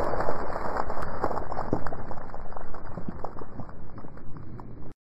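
Rumbling wind noise on the microphone with scattered small crackles and clicks, fading and then cutting off suddenly near the end.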